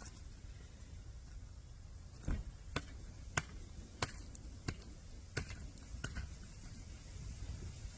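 A run of about seven sharp knocks, evenly spaced about two-thirds of a second apart, over a low steady rumble.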